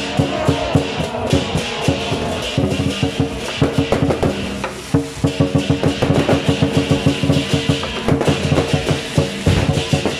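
Taiwanese temple procession music: fast, rhythmic drum and percussion beats over sustained steady tones.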